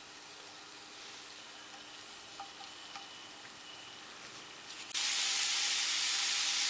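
Grated potato frying in a thin layer of oil in a frying pan, a steady sizzle with a few small crackles. It is faint at first, then jumps suddenly much louder about five seconds in.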